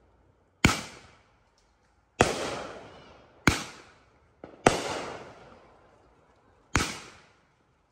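Consumer aerial fireworks bursting overhead: five sharp bangs spread over about six seconds, with one small pop just before the fourth, each trailing off over about a second.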